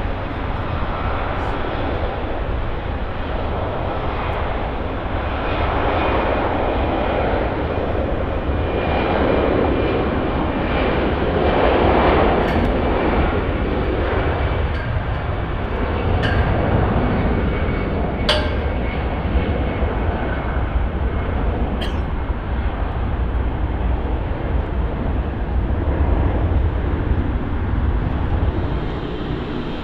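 Airliner engines at close range: a loud, steady rumble with a deep low end that swells and eases a few times as the aircraft moves past.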